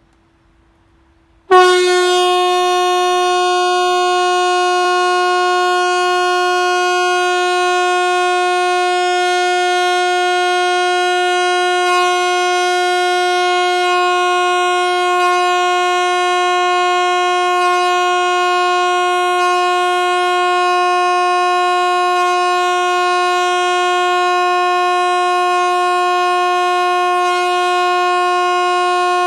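Swedish "Hesa Fredrik" outdoor warning siren sounding one long, unbroken steady tone, which is the continuous all-clear ("Faran över") signal used in the quarterly alarm test. It starts abruptly at full pitch about a second and a half in, loud and rich in overtones.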